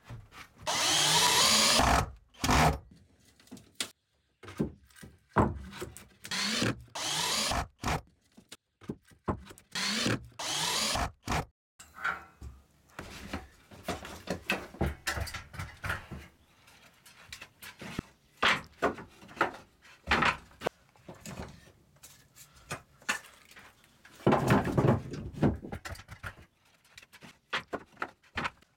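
A power drill running in four short bursts of a second or two each, driving into timber, with knocks and clatter of wood being handled between the runs.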